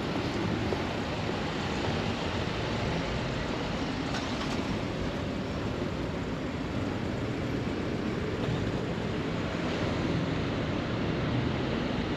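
Steady road-traffic noise, an even low rumble with no single event standing out.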